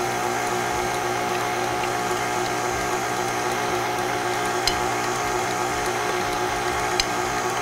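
Electric mixer running steadily, beating cake batter as flour is gradually added, with two light ticks, one near the middle and one near the end.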